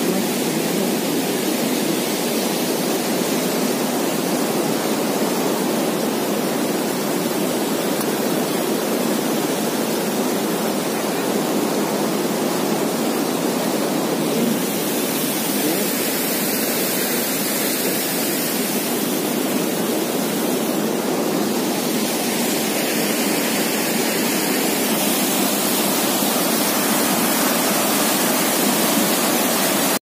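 Steady rushing of water from a river waterfall tumbling over rock, an even hiss with no breaks; it turns hissier for several seconds around the middle.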